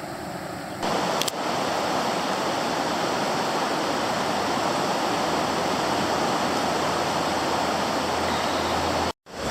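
Fast, high floodwater of the South Fork Eel River rushing in a loud, steady wash of noise. It is quieter for the first second, and the sound cuts out briefly near the end.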